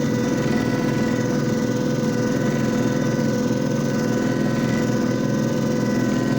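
JFJ Easy Pro disc repair machine running steadily: an even motor hum with a constant high whine that does not change.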